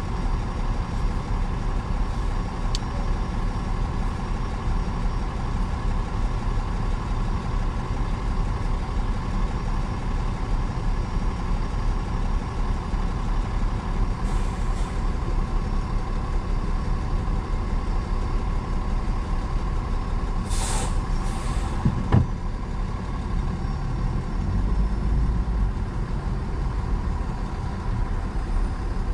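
Articulated city bus idling alongside in stopped traffic, a steady low engine drone. About twenty seconds in come two short hisses of air, typical of the bus's air brakes, then a sharp click.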